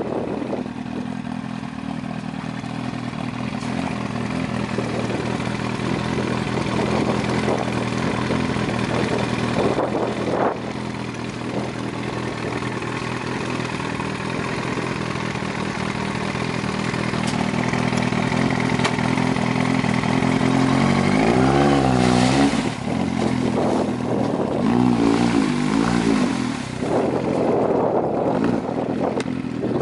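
Yamaha R1's inline-four engine running steadily at low revs. About two-thirds of the way in it is revved up and down in several quick throttle blips, in two short bursts.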